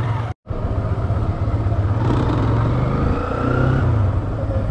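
Motorcycle engine running steadily while riding in traffic, with a low hum and road noise. The sound cuts out completely for an instant about half a second in, then resumes.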